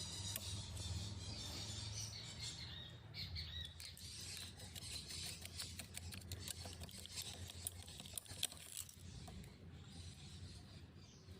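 A low hum that fades over the first few seconds, then a run of quick, irregular mechanical clicks and ticks.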